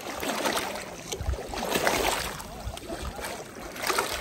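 Water sloshing and lapping in an uneven splashy wash, with a few low bumps.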